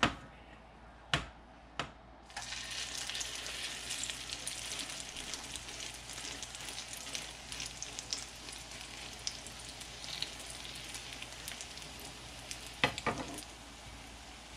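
Egg-dipped bread sandwich frying in hot fat in a non-stick pan: a dense crackling sizzle that starts suddenly about two seconds in, when the toast goes back into the pan. Metal tongs click a few times before it, and a couple of sharp clatters come near the end.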